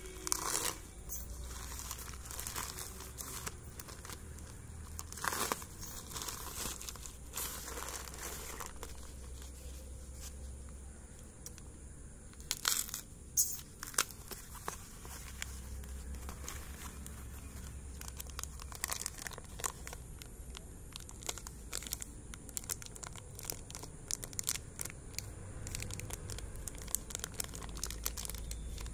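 Plastic courier mailer and the white wrapping inside it being torn open and crinkled by hand: repeated sharp rips and rustling, with the loudest rips about 13 seconds in.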